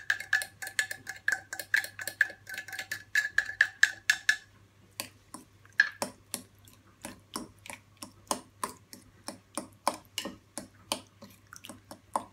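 Metal fork tapping rapidly against an opened tuna can, about five taps a second with a ringing tone, scraping the tuna out. After about four and a half seconds the taps turn slower and irregular, without the ring, as the fork works the tuna into the chopped tomato in the dish.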